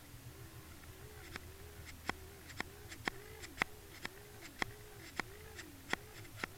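Sound picked up underwater: a faint hum that wavers up and down in pitch about twice a second, with sharp clicks about twice a second starting about a second in.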